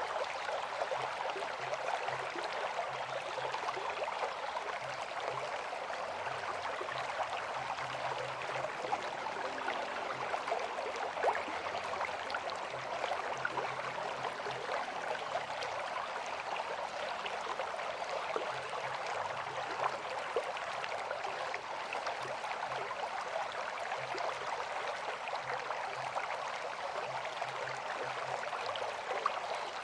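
River water flowing steadily, a continuous even rush with fine splashing ticks.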